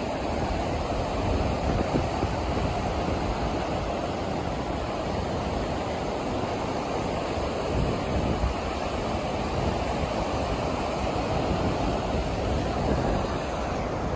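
Atlantic surf breaking on a flat sandy beach, a steady rush of waves, with wind buffeting the microphone in an uneven low rumble.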